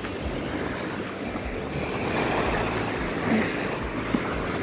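Surf washing up onto a sandy beach: a steady hiss of waves and backwash, with wind rumbling on the microphone.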